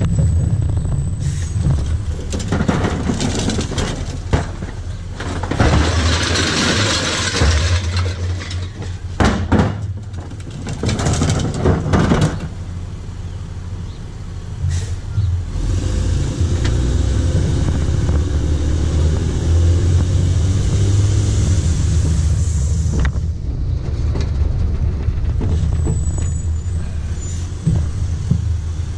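Recyclables (aluminium cans, plastic jugs, boxes) tipped into a rear-loader garbage truck's hopper, clattering and rattling in several loads during the first half, over the truck's engine running steadily. In the second half the engine runs on alone, a little louder, with no impacts.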